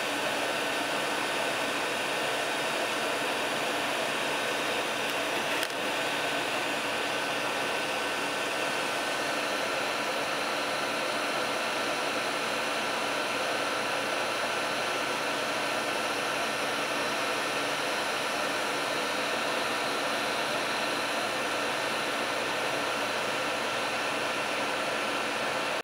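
Steady whirring fan noise that holds unchanged throughout, with a faint steady tone in it. A faint click about six seconds in.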